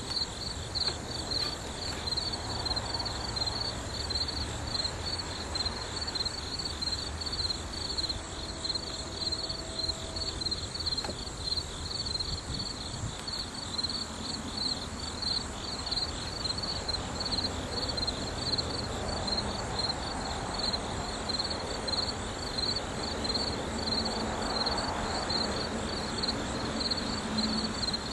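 Insects, likely crickets, chirping in a steady, fast-pulsing high trill over a low rumble. A low steady hum comes in during the second half.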